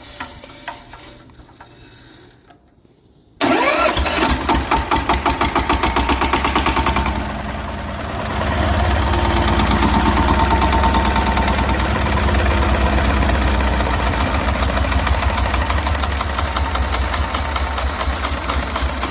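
Yanmar TS190R single-cylinder diesel generator engine starting about three seconds in: a few seconds of quick rhythmic pulses as it catches, then it settles into a steady run. It now starts after the diesel pump was replaced to cure its hard starting.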